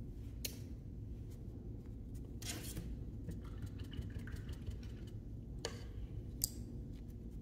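A few light clicks and a brief rustle as paint bottles, a paper-plate palette and brushes are handled on a table, over a steady low hum.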